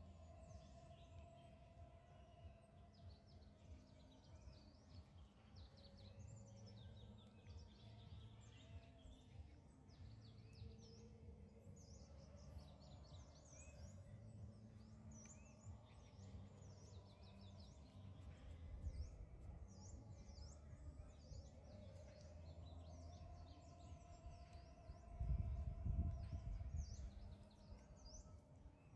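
Faint outdoor ambience of small birds chirping, with many short, high chirps scattered throughout, over a low rumble that swells briefly near the end.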